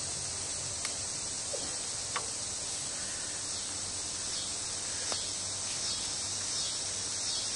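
Steady high-pitched chorus of insects, with a few faint clicks as a takedown recurve bow is bent and strung.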